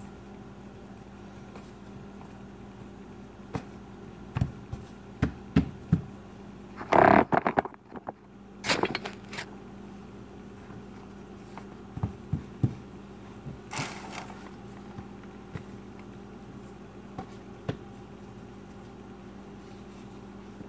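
Hands pressing and patting pieces of crumbly sugar cookie dough onto a countertop: scattered soft knocks and taps, with a few louder brief noises about a third of the way in and again past the middle, over a steady low hum.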